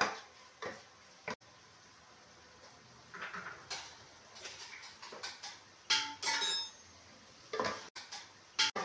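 A spatula scraping and knocking against a stainless-steel pot as soaked dal is stirred and roasted, in scattered strokes, with a brief metallic ring about six seconds in.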